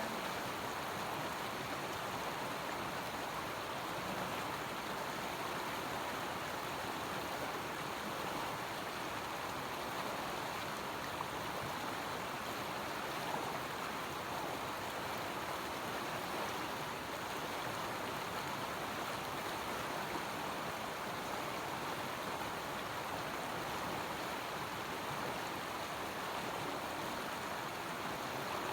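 River water flowing steadily, a constant rushing sound.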